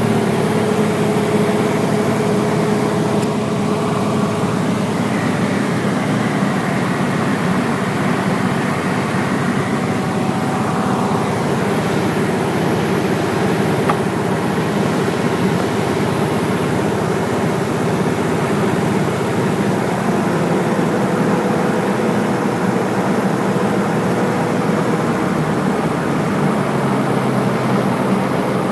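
Light aircraft's piston engine and propeller running steadily, a constant drone heard from inside the cockpit.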